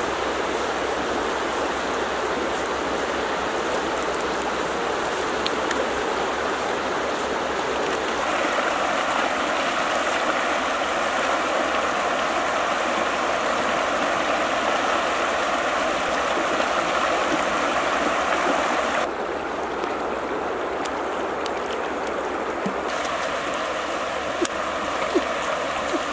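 Shallow river rushing over rocks: a steady wash of flowing water, its tone shifting abruptly about 8 and 19 seconds in.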